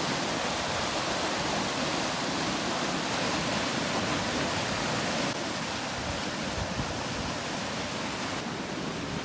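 Floodwater from a flash-flooded stream and overflowing pond rushing steadily across a washed-out gravel road.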